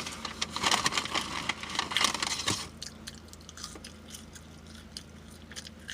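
Close-up biting and chewing of a crispy fried chicken sandwich: a cluster of crunching and wet mouth sounds in the first two and a half seconds, then quieter, sparser chewing.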